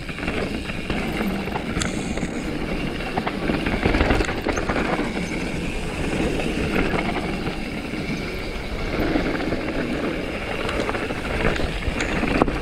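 Mountain bike riding down a dirt trail: a steady rush of tyre noise and wind, with irregular rattles and knocks from the bike over rough ground.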